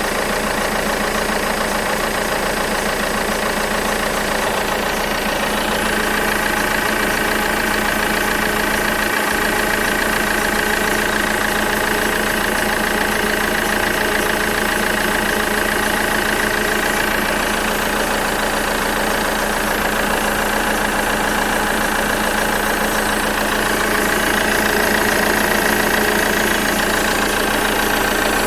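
Alfa Romeo 159 engine running at a steady idle, with the strange noise the owner is recording: a steady high-pitched whine over the engine hum that grows louder about six seconds in.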